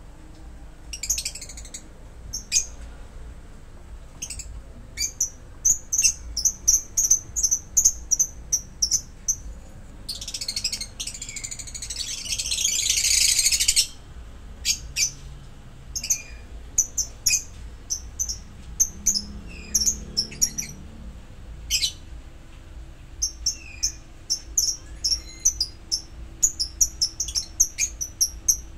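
Lovebirds chirping: runs of quick, high, repeated chirps, with a loud harsh chattering burst lasting about four seconds near the middle.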